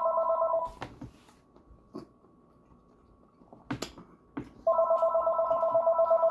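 Telephone ringing with an electronic warbling trill. One ring ends under a second in, a few faint clicks and knocks follow, and the next ring starts about three quarters of the way through.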